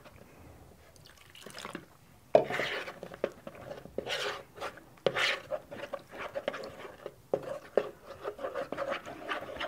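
A spoon stirring potato starch and a little water in a plastic bowl, mixing them into a thin slurry: irregular wet scraping and clicking that starts about two seconds in.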